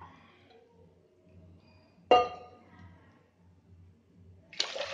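A single sharp clink of a glass bowl with a short ring, then, near the end, water pouring from the bowl into a steel pot of sugar for syrup.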